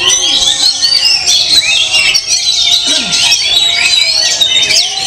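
Many caged songbirds singing at once: a dense, unbroken chorus of overlapping rapid chirps, trills and whistles, high-pitched.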